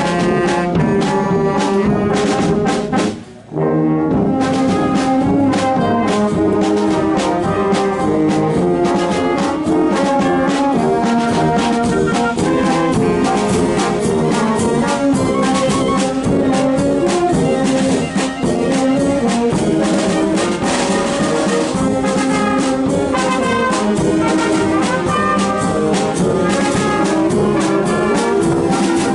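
Filarmónica wind band playing brass-led music, trumpets and trombones over a regular percussion beat. The music breaks off for a moment about three seconds in, then carries on.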